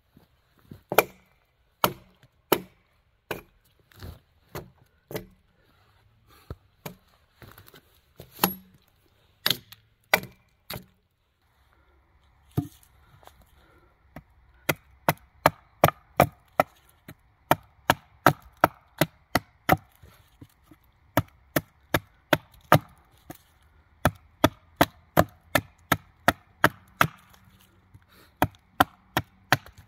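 Hatchet blows striking wood, irregular at first, then after a short pause a steady run of quick strokes about twice a second as a pine pole's end is hewn to a point against a stump, chips splitting off.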